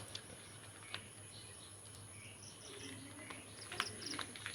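Faint background of small birds chirping in short bursts, with a few light clicks and knocks and a steady thin high-pitched tone underneath.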